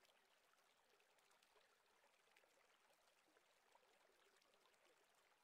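Near silence: only a faint, even hiss with tiny ticks.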